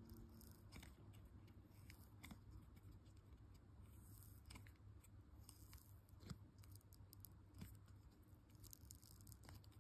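Near silence, with a few faint scattered clicks and creaks of fingers handling a silicone resin mold, the clearest about six seconds in.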